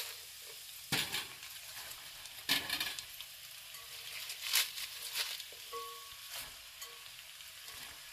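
Diced onions, carrots and garlic sizzling gently in bacon grease in an enamelled cast-iron pot, while chunks of raw cabbage are dropped in from a bowl, giving several sudden thumps and rustles over the steady sizzle.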